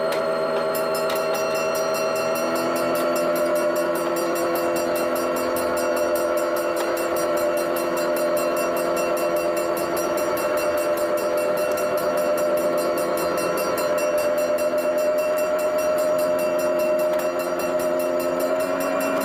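Homemade ride-on mini train rolling along its narrow-gauge steel track, with a steady whine made of several pitches held together.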